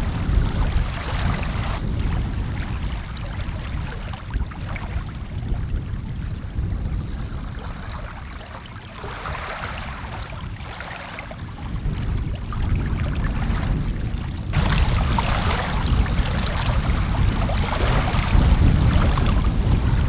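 Wind buffeting the microphone over small waves lapping at a stony shore. The wind noise eases off in the middle and comes back stronger for the last third.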